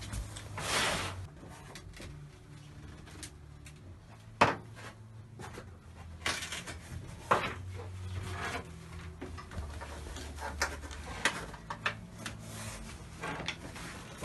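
Bicycles being shoved and stacked tightly together: scattered knocks, clicks and rattles of frames and parts, with a brief rustle a second in and a sharp knock about four seconds in. A steady low hum runs underneath.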